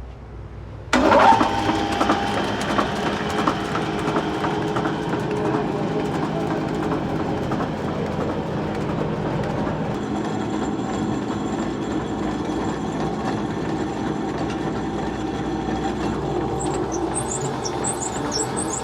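Sawmill machinery running with a loud, steady mechanical clatter and hum, cutting in abruptly about a second in. High squeaks come in near the end.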